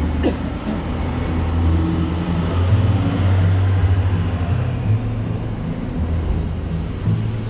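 Street traffic noise, with a motor vehicle's engine running as a steady low hum under the general din of the road.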